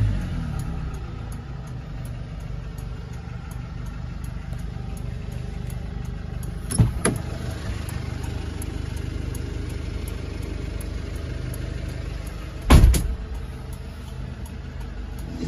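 Hyundai Porter II's CRDi common-rail diesel idling steadily after being revved. A couple of sharp knocks come about seven seconds in, and a louder thump near the end.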